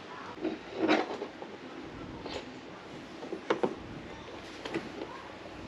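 Hands handling a plastic battery box and its fittings: scattered light clicks and knocks, with a louder scraping rustle about a second in.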